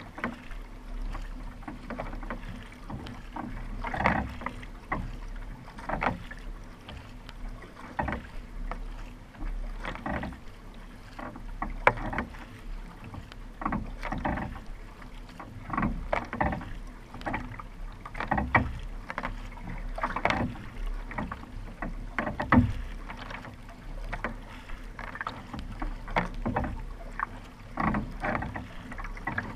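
Paddle strokes of a racing kayak, each blade catching and splashing in the water in a regular rhythm of roughly one stroke a second, over water rushing along the hull, picked up by a camera on the kayak's deck.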